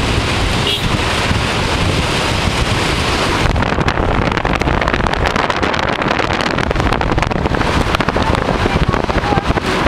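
Heavy wind rushing and buffeting against the microphone of a camera held out of a moving car's window. The hiss in the rush turns duller about three and a half seconds in.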